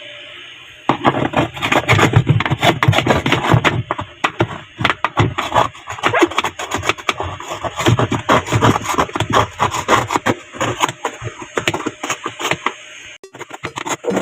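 Rapid, irregular scraping and clattering of hard parts as a washing machine's dirty drain assembly is worked loose and taken off. It starts about a second in and stops shortly before the end.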